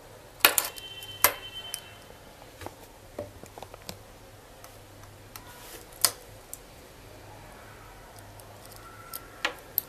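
Stainless steel watch case and link bracelet clicking and clinking against the fingers as it is handled and turned over, in scattered sharp knocks, one with a brief metallic ring about a second in.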